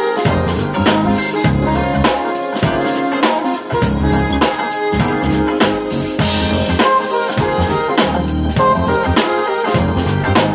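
Live band playing: a drum kit keeps a steady beat under a saxophone line and keyboard chords.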